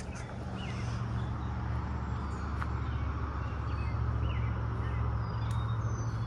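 A steady low engine hum, with a few faint bird chirps over it.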